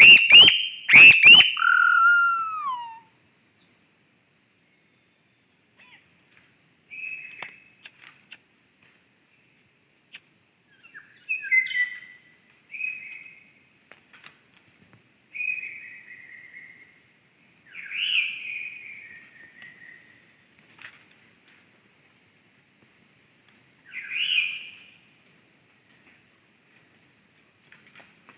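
A bird calling repeatedly: short whistled phrases that slide downward in pitch, very loud and close in the first few seconds, then coming again every few seconds.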